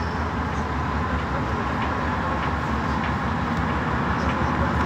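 Running noise of a rubber-tyred metro train at speed, heard from inside the driver's cab: a steady rumble with a faint motor whine and a few light clicks.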